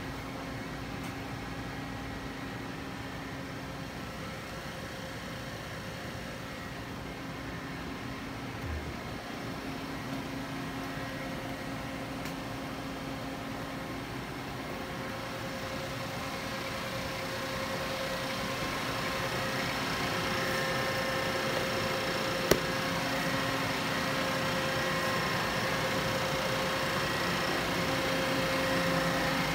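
Steady machinery hum carrying a few steady tones, slowly growing louder, with one sharp click about three-quarters of the way through.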